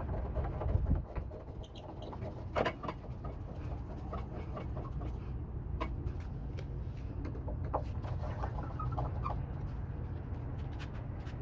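Water draining from a water heater tank through its drain valve into a garden hose: a steady low rush, with scattered light clicks and short high chirps over it.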